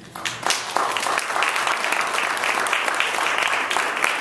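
Audience applauding. The clapping starts right away, swells within the first second, then holds steady.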